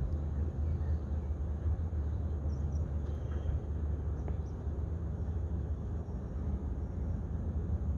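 Steady low rumble of wind buffeting the microphone outdoors, with no distinct event.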